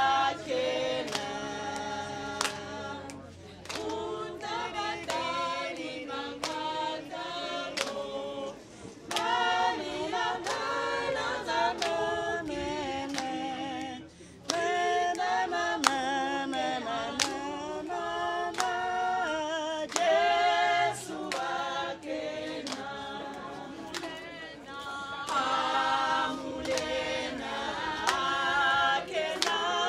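A choir singing a cappella, several voices in harmony in phrases of a few seconds each, with frequent sharp clicks.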